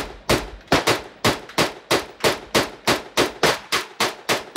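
Zastava M85 PAP 10-inch 5.56 AK-pattern pistol firing rapid semi-automatic shots, about three to four a second and evenly spaced, each shot trailing off in a short echo. The pistol is cycling with a KNS adjustable gas piston fitted.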